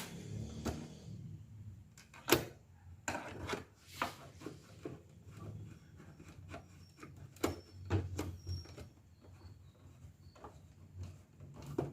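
Irregular clicks and knocks of small hard objects being handled on a workbench, the loudest about two seconds in, over a faint low hum.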